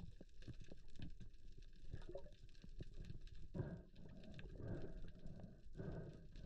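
Muffled underwater noise through a diving camera: a low rumble of moving water that swells and fades about once a second, with scattered small clicks and knocks from the spear shaft and gear being handled.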